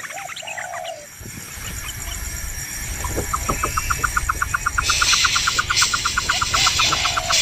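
Birds calling: two short low calls, and a rapid, even series of high pips that starts about three seconds in. A steady high hiss comes in about five seconds in.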